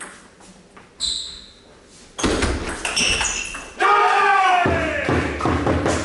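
Table tennis ball struck and bouncing in a doubles rally, sharp ringing ticks echoing in a large hall. About four seconds in, a voice calls out loudly.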